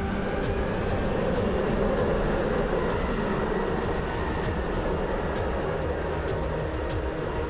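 Ekranoplan's jet engines running in a steady, continuous rumble.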